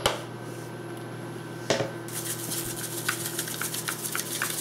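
A couple of sharp knocks from a knife and plastic cutting board at the start, then from about halfway a hand salt grinder being twisted over chopped onions, a rapid gritty crackle.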